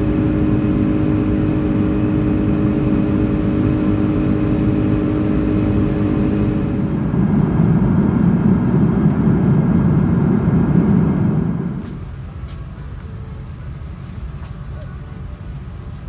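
Airbus A330-300 cabin noise from a window seat by the wing: steady engine drone with humming tones during the climb after take-off. About seven seconds in it changes abruptly to a louder, rougher rushing noise without the tones. Just before twelve seconds it drops suddenly to a quieter cabin hum with a few faint clicks.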